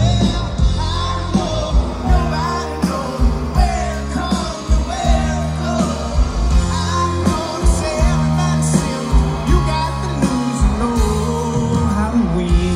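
Live rock band playing over a PA: a singer over drums, bass and guitar, with a steady beat.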